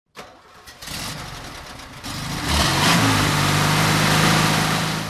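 Vehicle engine running, building up over the first couple of seconds and settling into a steady drone about halfway through.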